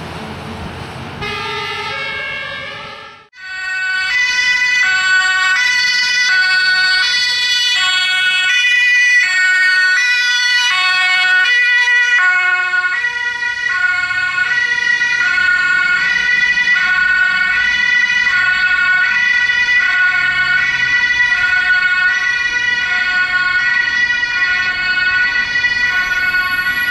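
German two-tone emergency-vehicle siren (Martinshorn) sounding from a passing ambulance. It switches back and forth between a high and a low note about once a second. It follows a few seconds of mixed vehicle noise and short stepped tones that cut off abruptly.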